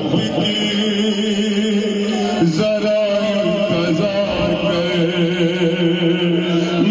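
Chant-like mourning music with long held notes and no clear words, the melody changing pitch about two and a half seconds in.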